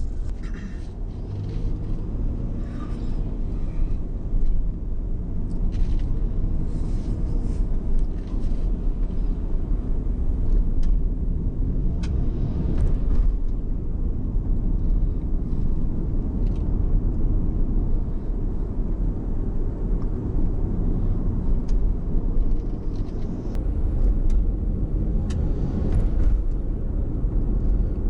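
Steady low rumble of a car being driven through town, engine and tyre noise heard from inside the cabin.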